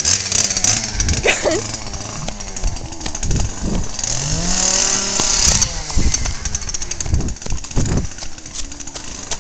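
Electric chainsaw motor running in bursts, spinning up with a rising whine about four seconds in, mixed with the thuds of people running and a short yelp about a second in.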